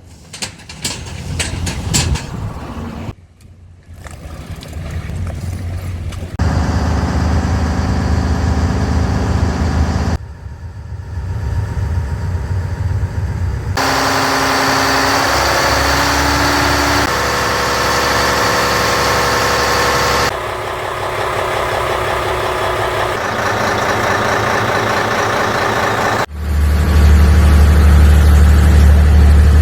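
A fishing boat's large 22,000 cc engine running in a series of short clips, its sound changing abruptly at each cut, with clicks and knocks in the first few seconds. The engine is loudest, with a strong low hum, in the last few seconds.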